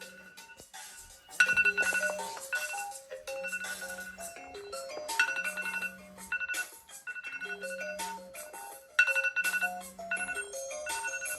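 Apple iPhone and iPad alarm tones ringing together as a looping electronic melody of short stepped notes over a pulsing low note. It gets suddenly louder about every four seconds as the phrase repeats.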